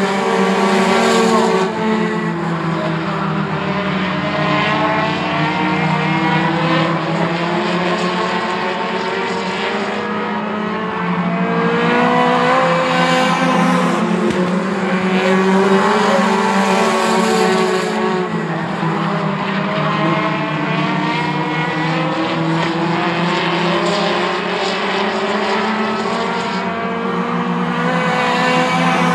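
A pack of four-cylinder compact race cars running hard on a short oval, several engines sounding at once. Their pitch rises and falls every few seconds as the cars lift for the turns and accelerate out of them.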